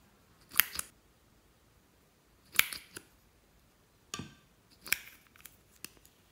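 Sharp plastic clicks and clacks from lip gloss tubes and their wands being handled, about seven in all at uneven intervals.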